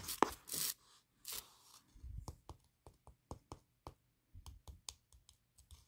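A scoop digging collagen powder out of a plastic tub: a few soft scrapes in the first second or so, then scattered light clicks and taps against the tub.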